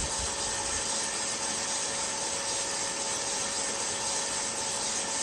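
Aillio Bullet drum coffee roaster running steadily: a constant fan hiss with a faint steady hum, and coffee beans rustling as they tumble in the rotating drum, late in the roast after first crack.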